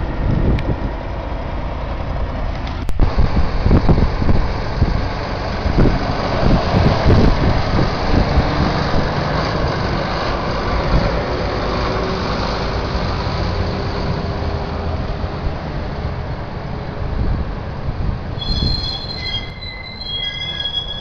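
Heavy military wheeled vehicles driving past: camouflaged eight-wheeled armoured personnel carriers and an army truck, with a deep diesel engine rumble and tyre noise on the road. High, steady squealing tones come in near the end.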